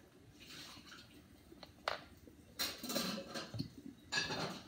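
Spoon clinking and scraping against a bowl while slime is mixed, with one sharp clink about two seconds in and short scraping strokes after it.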